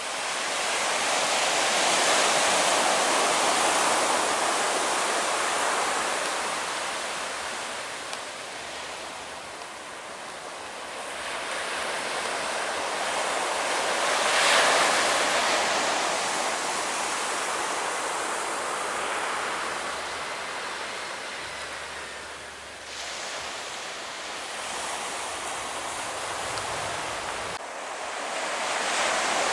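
Surf breaking and washing on a beach, a steady rush that swells and fades several times, with wind buffeting the microphone.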